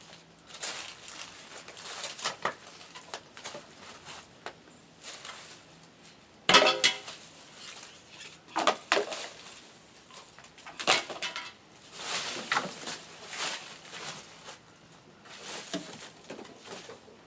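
Irregular knocks, scrapes and metallic clinks of hand tools and lumber being worked on a wooden porch deck. The loudest is a sharp metal clank with a brief ring about six and a half seconds in.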